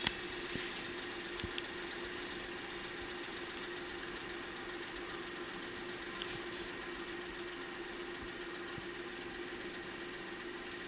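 An engine idling steadily: an even hum with a steady tone and a few faint clicks.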